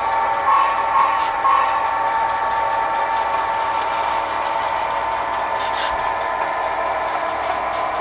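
Sound-equipped HO scale model diesel locomotive playing a steady diesel engine sound through its small speaker, with a few light clicks.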